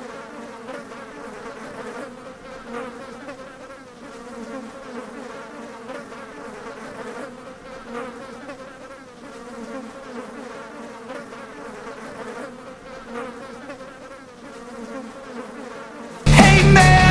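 A steady low buzzing hum with wavering higher overtones. Loud rock music cuts in near the end.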